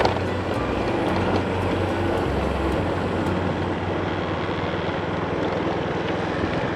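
Steady vehicle running noise with road and wind rumble as it travels along, with one sharp click at the very start.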